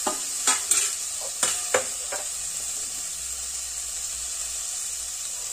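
Chopped tomatoes sizzling in hot mustard oil and fried spices in a karahi: a steady frying hiss. A few short metal clinks come in the first two seconds.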